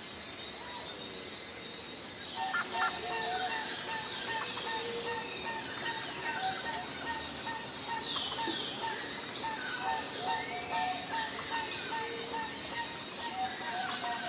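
Birds chirping, then about two seconds in soft background music comes in, with an evenly repeating pattern of notes. Birdsong and a steady high tone carry on behind the music.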